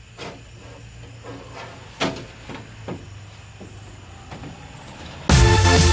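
A few light knocks and clicks over a low steady hum, the sharpest about two seconds in; loud electronic dance music cuts in abruptly near the end.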